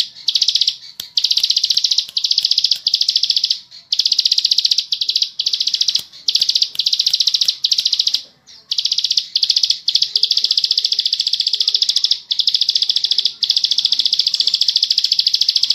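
Plain prinia (ciblek sawah) singing long, very rapid trills, one phrase after another with only brief breaks between them.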